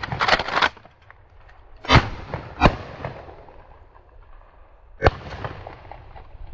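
Shotgun shots fired at passing doves: three sharp reports about two, two and a half and five seconds in. The first two come in quick succession and the first is the loudest.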